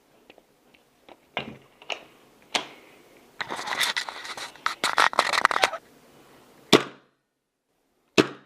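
Sharp clicks, then a couple of seconds of dense crackling, rattly noise with more clicks in it, and two last single clicks, from handling an airsoft gas magazine fitted with an HPA tap.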